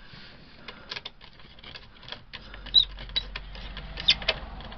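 Small irregular clicks, taps and scrapes of a screwdriver and wire terminals as DC wires are fastened and snugged down on an RV power converter's fuse board, with a few sharper clicks in the second half.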